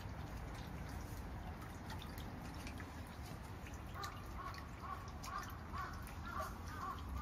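Water running from the spout of a shrine's stone purification fountain into its basin, a steady trickle and splash. From about four seconds in, short high chirps repeat roughly twice a second over it.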